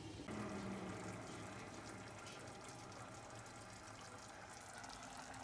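Steady hiss and bubbling of water boiling under a steamer pot of meatballs.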